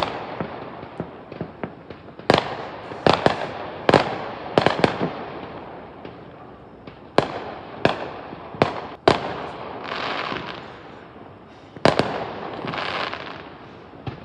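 Fireworks going off: about a dozen sharp bangs at irregular intervals, each with an echoing tail. Twice, about two-thirds of the way in and again near the end, a longer crackling spell follows a bang.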